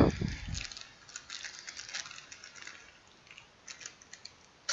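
Thin plastic wrapper crinkling and rustling as hands pull it open. The crackle is thickest in the first couple of seconds and thins out, with a sharp click near the end.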